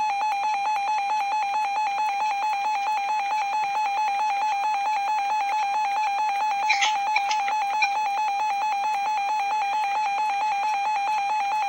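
Emergency Alert System tornado watch broadcast malfunctioning: a single steady alert tone runs on and on, with a rapid, even pulsing over it, instead of the message. A few short clicks sound about two-thirds of the way through.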